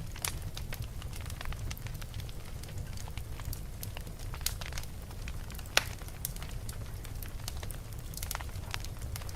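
Wood fire burning in a fireplace, crackling with frequent small irregular snaps over a steady low rumble, and one louder pop just under halfway through.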